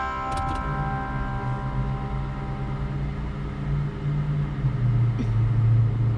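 Steady low hum of a parked car running, heard from inside the cabin, getting louder about five seconds in; background guitar music fades out at the start.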